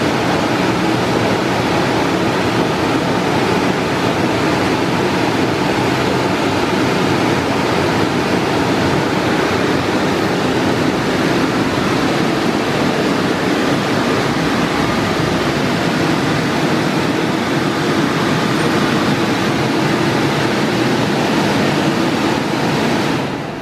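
Istobal M'Start rollover car wash gantry running a pass along the car with a loud, steady rushing noise, which drops away sharply near the end as the wash cycle finishes.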